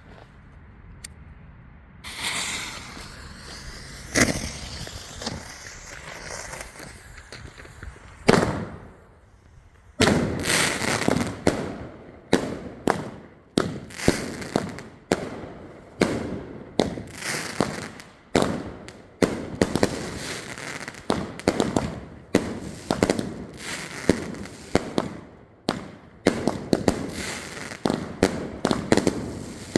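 Consumer fireworks going off. After a quiet start comes crackling and a couple of single bangs. From about ten seconds in there is a rapid string of sharp shots and bursts, a few a second, until the end.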